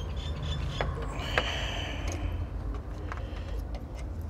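Handling noise: a few light clicks and taps of small parts being picked up and handled, over a low steady rumble.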